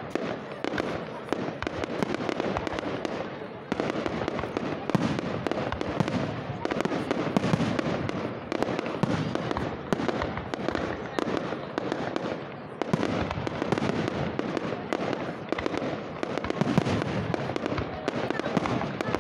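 Fireworks display: a dense, continuous barrage of aerial shell bursts and crackling, the bangs following one another with no break and one louder bang late on.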